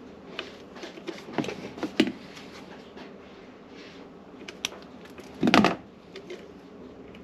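Handling noises from work on plumbing parts: scattered clicks and knocks, a quick run of them between about one and two seconds in, and a louder, longer clatter about five and a half seconds in.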